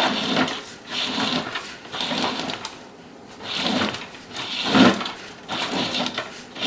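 Sewer inspection camera's push cable being fed by hand off its reel: uneven bursts of rubbing and rattling about once a second as the cable is shoved down the line.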